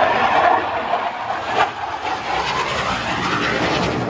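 Military jet passing overhead: loud jet engine noise, its tone sweeping as the aircraft goes by, with one brief knock about a second and a half in.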